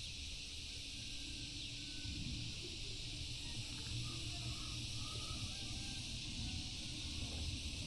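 Outdoor ambience by a lake: a steady high hiss over a low rumble, with a few faint short chirps in the middle.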